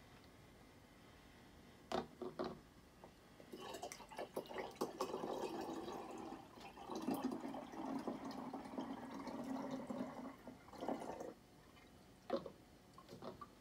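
Oat milk pouring from a plastic jug through a plastic funnel into a glass growler, running for about eight seconds, with a few light knocks before and after the pour.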